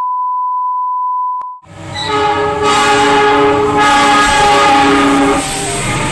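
A steady test-pattern beep that cuts off about a second and a half in, then a diesel locomotive's horn sounding loud chords that change pitch several times over the noise of the passing train.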